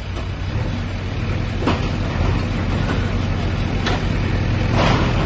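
JCB backhoe loader's diesel engine running steadily, with two sharp knocks about a second and a half apart midway and a spell of crunching clatter near the end as the machine works among the demolition debris.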